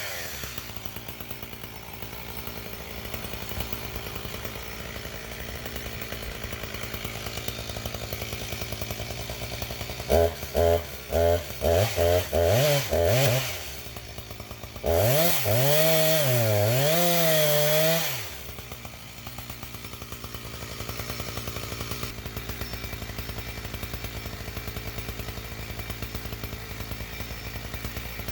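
Husqvarna 359 two-stroke chainsaw idling, then blipped through about six short revs, then held at high revs for about three seconds with the pitch wavering, before dropping back to idle.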